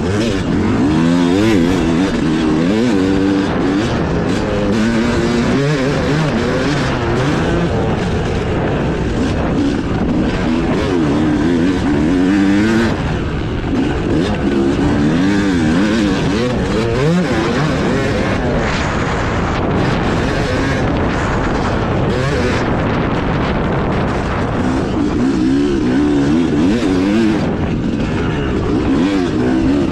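Yamaha YZ250 two-stroke motocross engine revving hard as the bike is ridden, its pitch sweeping up and down over and over.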